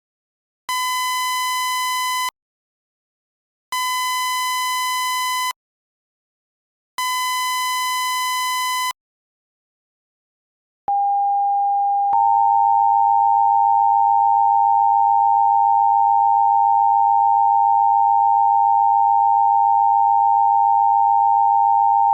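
Mock Emergency Alert System broadcast tones: three buzzy electronic bursts, each about a second and a half long, in the place of the header data bursts. About eleven seconds in, the steady two-tone EAS attention signal begins, a single tone for the first second before the second tone joins.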